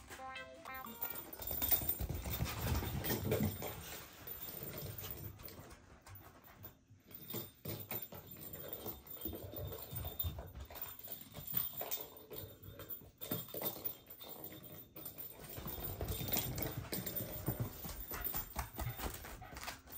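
Paws of kittens and a Shiba Inu padding and scuffling on tatami mats and a wooden floor, with irregular soft thumps as the kittens bat a small ball around.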